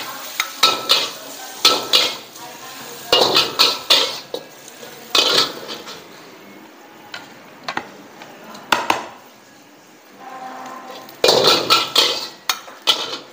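Steel ladle scraping and clanking against a wok while scooping out cooked fried rice, in short clusters of knocks and scrapes a few seconds apart.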